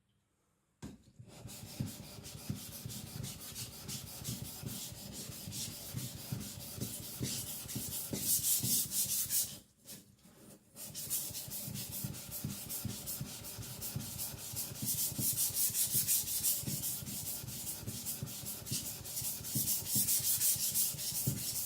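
Steel blade of a Victorinox Chinese cleaver scraping back and forth on a wet whetstone in quick strokes, grinding the blade thinner behind the edge. The strokes start about a second in and stop briefly near the middle before going on.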